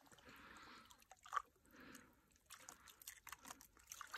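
Faint water sloshing and dripping in an ice-fishing hole as a lake trout held by the tail is moved and let go, with scattered small ticks and one sharper click a little over a second in.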